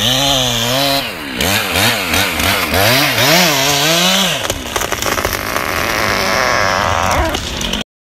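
Gas chainsaw cutting into a large tree trunk, its engine pitch rising and falling again and again as it works in the cut, then running on more steadily for the rest.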